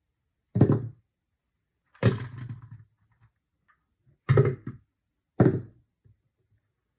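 Pieces of a toy set being handled and set down on a surface: four separate dull thunks, one to two seconds apart.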